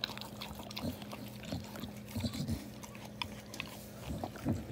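Pit bull mother licking and nuzzling her newborn puppy: wet licking and snuffling with a few short, low grunts.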